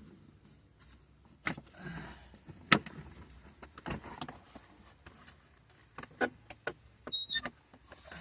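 Irregular clicks and knocks of parts and tools being handled during interior trim work in a Jeep, the sharpest knock about three seconds in, with a cluster of clicks and a brief high squeak near the end.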